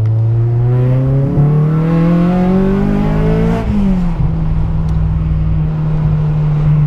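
2008 Honda Civic Si's four-cylinder engine, fitted with TSX camshafts and a catless header, heard from the cabin as the car accelerates in second gear. The engine note climbs steadily in pitch for about three and a half seconds, then drops sharply and settles into a steady drone.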